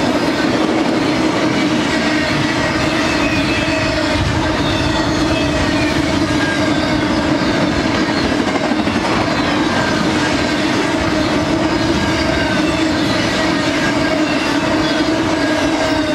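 Double-stack intermodal freight train's container well cars rolling past, with a steady sound of steel wheels running on the rails. A faint, high-pitched squeal of wheels against the rails drifts in and out above it.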